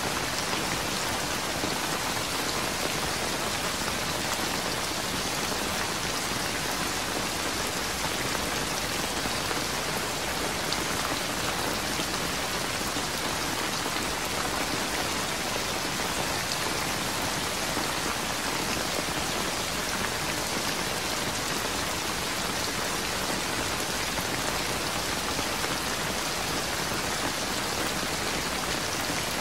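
Steady heavy rain falling, an even hiss of drops on surfaces with no thunder and no music.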